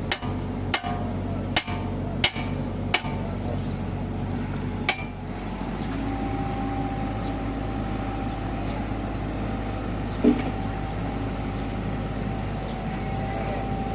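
Hammer blows on metal ringing out, about five strikes in the first five seconds and one more knock about ten seconds in, over the steady running of the mini excavator's diesel engine.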